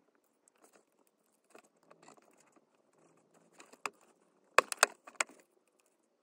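Small parts of a diecast toy car handled by gloved hands: faint light taps and rustles, then a cluster of three or four sharp clicks about four and a half seconds in as a wheel, axle and screwdriver are worked together.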